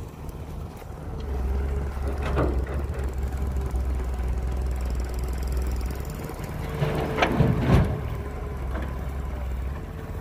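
Diesel engine of an excavator loading a dump truck, running steadily with a faint steady whine over it. There is a knock about two seconds in and a louder cluster of clanks about seven to eight seconds in.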